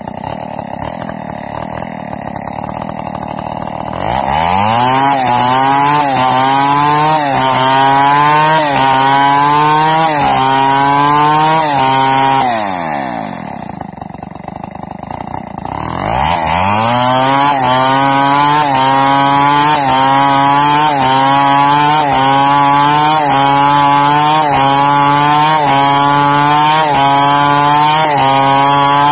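Two-stroke chainsaw ripping a log lengthwise into planks. It idles at first, revs to full throttle about four seconds in, and its pitch dips about once a second as the chain loads in the cut. Near the middle it falls back to idle for a few seconds, then revs up again and keeps cutting.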